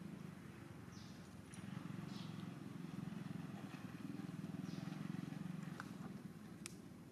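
A steady low drone, like a distant engine, runs under a few faint rustles, with a couple of light clicks near the end.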